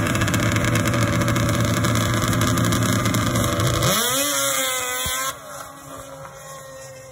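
Two racing snowmobile engines running loudly at the start line, then revving up with a sharp rise in pitch about four seconds in as the sleds launch. After about five seconds the engine sound drops to a quieter, steadier level.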